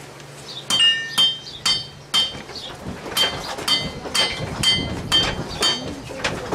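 Blacksmith's hammer striking iron on an anvil, about two ringing blows a second with a short pause partway through.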